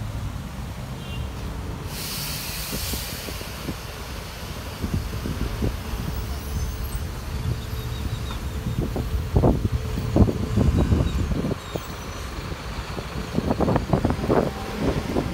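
Street traffic, with vehicle engines running in a steady low rumble. About two seconds in, a heavy vehicle's air brake releases with a sudden hiss that fades over a second or so. Several short knocks and clatters come later on.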